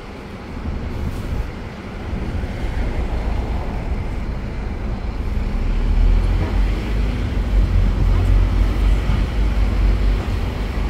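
Open-top double-decker sightseeing bus driving through city traffic: engine and road noise, with a low rumble that grows louder about halfway through.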